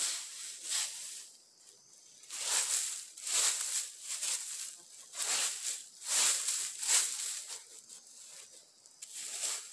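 Dry fallen leaves being swept and scraped aside from the forest floor, in repeated rustling swishes about once a second, with a short pause about a second in.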